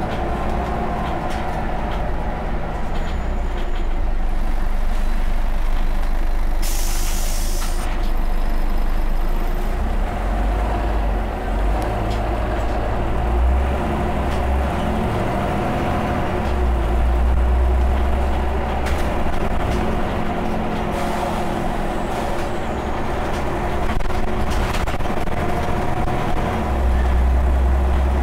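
Scania OmniCity bus heard from inside the saloon, its engine running with a low rumble that swells a few times as it pulls along. About seven seconds in comes a short burst of hissing compressed air from the bus's air system.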